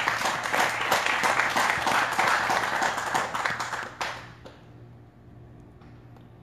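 Congregation applauding as a "clap offering": many hands clapping together, stopping fairly suddenly about four seconds in and leaving only a faint low hum.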